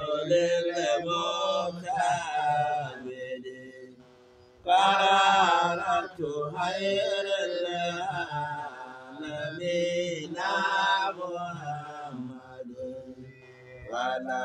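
Male chanting in long melodic phrases, the pitch bending and held, with a breath pause about four seconds in.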